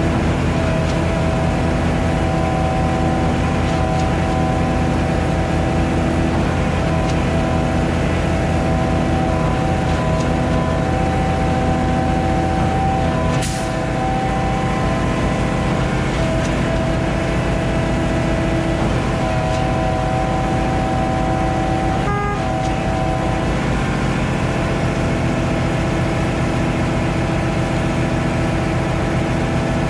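Concrete boom pump truck's engine running steadily under load while pumping concrete, with a sharp click about halfway through, after which the low drone drops a little.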